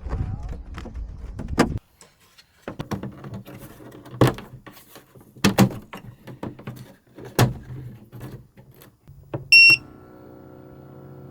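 Scattered knocks and rattles, then a single short electronic beep about nine and a half seconds in, followed by a steady hum with several tones.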